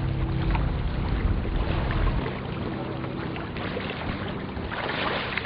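Sea water splashing and sloshing against the side of a small boat, with a low rumble that drops away about two seconds in.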